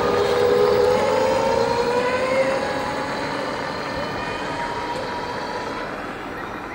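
Electric golf-cart shuttle's motor whining as it pulls away, the whine rising slightly in pitch as it speeds up, then fading as it moves off, with murmur from people on the promenade.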